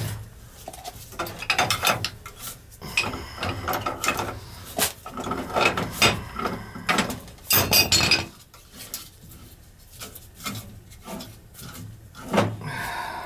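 Irregular metallic clinks, knocks and clatter of hand tools and metal parts being handled while the old gas valve is removed from a boiler, with a louder clatter about eight seconds in.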